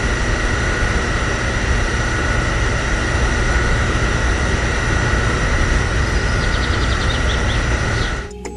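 Fuel pump running steadily while fuel is dispensed: a steady whine over a low hum and hiss, cutting off abruptly shortly before the end.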